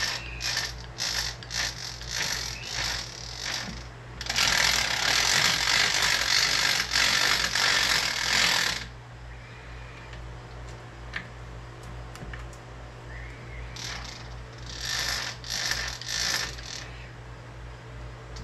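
South Bend machine's gear drive running in neutral over a steady motor hum, with rattling gear clatter and clicks. The clatter is loudest from about four to nine seconds in and again briefly near the end. Neutral is not working as it should, which the machinist puts down to some adjustment he is missing.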